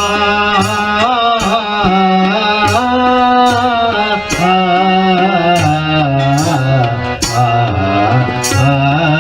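Newa bhajan music: a wavering, ornamented melody over a low sustained tone and a hand-drum beat, with a sharp bright strike landing roughly once a second.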